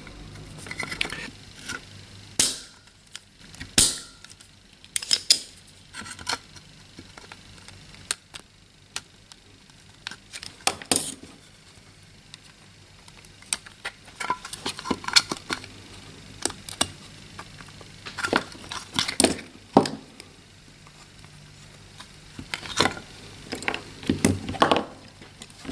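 Irregular sharp clicks and knocks of small hand tools and parts on a workbench while a fuse is removed from a power adapter's circuit board.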